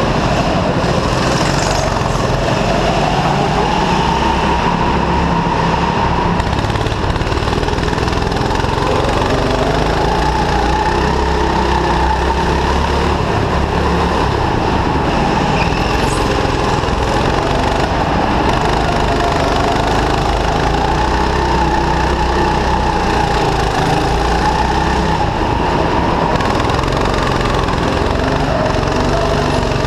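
Go-kart engine running close to the microphone, its pitch rising and falling smoothly as the throttle opens and closes through the laps.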